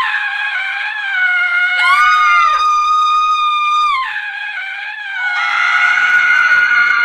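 Women screaming: long, high-pitched held screams following one another, a new one rising in about two seconds in, and several voices screaming together from about five seconds in.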